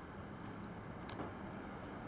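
Quiet room tone with a steady hiss and two faint clicks.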